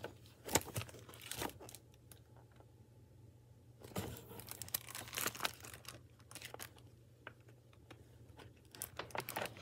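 Rustling and crinkling of a library picture book being handled and a page turned, in a few short bursts.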